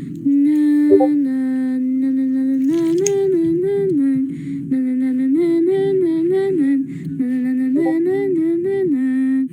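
A voice humming a wordless tune, holding notes and stepping up and down in a repeating phrase.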